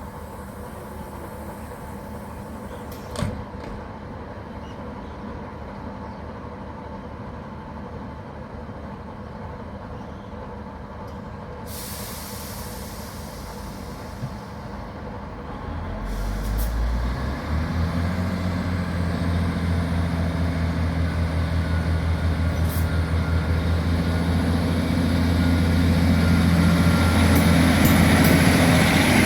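Class 153 diesel railcar heard from on board: the underfloor diesel engine ticking over quietly, a hiss of air about 12 seconds in, then the engine opening up about halfway through into a deep steady drone that grows louder as the train pulls away.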